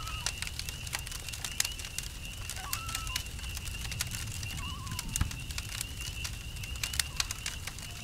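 Campfire crackling with sharp irregular pops over a low rumble, under a steady high cricket trill. A few short, wavering animal calls sound near the start, about a third of the way in and just past the middle.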